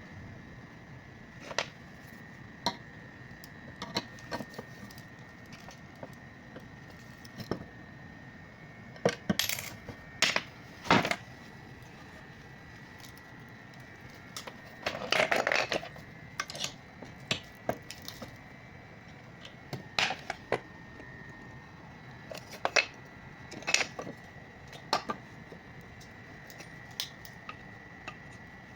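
Irregular clicks and knocks of small hard objects being handled and set down on a work surface, with a short rattling clatter about halfway through, over a faint steady high tone.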